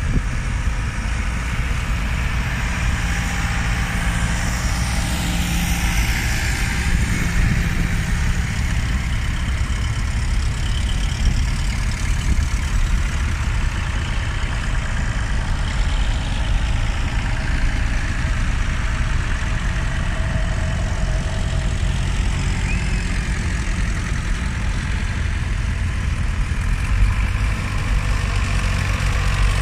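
Farm tractor engines running as the tractors move off one after another, a steady low engine note throughout.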